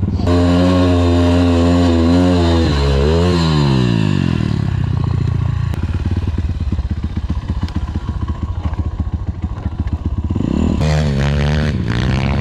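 MRF 140 pit bike engine running at high, steady revs on the sandy climb, then the revs drop away sharply over about a second and a half as the bike goes down on its side in the sand. It then runs low and uneven for several seconds, and an engine revs up again near the end.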